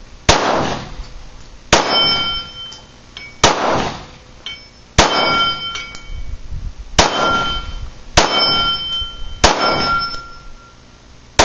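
About eight 9mm shots from a Glock 19 Gen 4 pistol, fired one every second or two. After most of them a steel gong target rings for about a second as it is hit.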